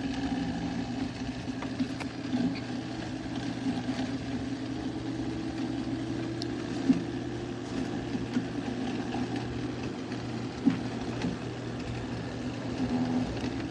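Fan motor of a 1970s Emerson Quiet Cool 5000 BTU window air conditioner running steadily with a hum after a sluggish start, its compressor switched off. A couple of short sharp clicks are heard about seven and eleven seconds in.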